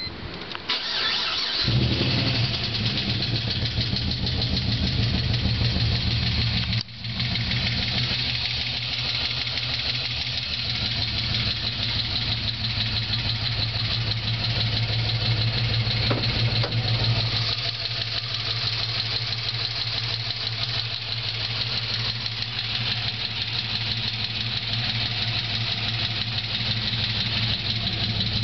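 Holden VZ Senator V8 cranks briefly, starts and settles into a steady idle with a fast ticking from the valvetrain. The tick comes from hydraulic lifters not getting enough oil because of low oil pressure from badly worn cam bearings.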